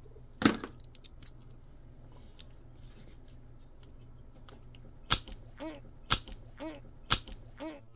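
Small screwdriver with a T6 star bit working the set screw of a metal motor-shaft coupler: one sharp click about half a second in, then three sharp clicks about a second apart near the end, each followed by a short pitched sound.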